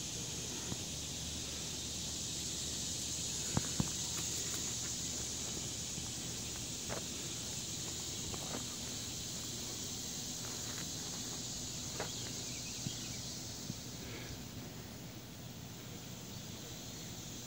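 Steady high-pitched insect chorus, with a few scattered soft clicks and rustles from hands working chicken of the woods mushroom clusters. Two sharp clicks close together about three and a half seconds in are the loudest.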